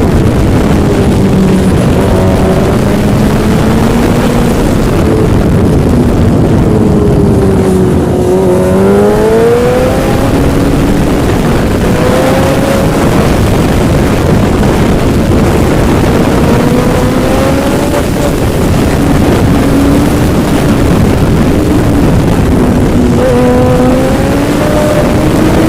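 Yamaha engine running under way, its pitch slowly rising and falling with the throttle, over a loud, steady rush of wind and travel noise.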